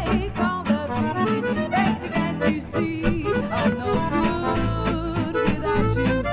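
Acoustic band music: a lead melody line over a bass part and strummed guitar, with a steady beat.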